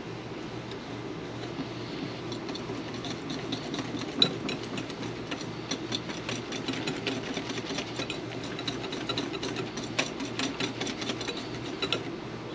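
Wire whisk beating a thin flour-and-beer batter in a glass bowl: a steady, rapid ticking of the wires against the glass over the sloshing of the batter.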